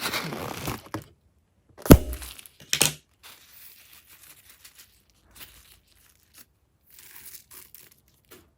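Handling sounds: crinkling for about a second, then a sharp loud crack about two seconds in and a smaller one just under a second later, followed by faint scattered crinkles and ticks.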